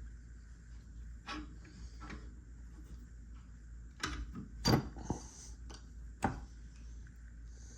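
A handful of short, scattered clicks and knocks from a hand-held thread-cleaning die and a differential bolt being handled, the loudest a little past halfway.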